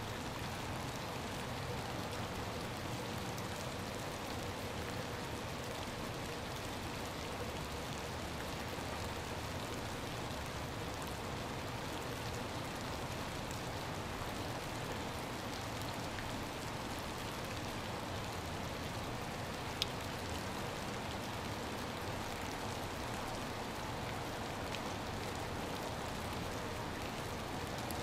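Steady patter of icy rain falling on puddles and wet grass, with one sharp tick about two-thirds of the way through.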